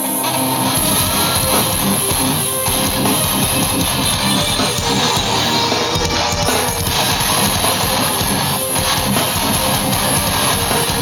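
Live rock band playing loud, electric guitars strumming over a drum kit, the full band coming in together right at the start.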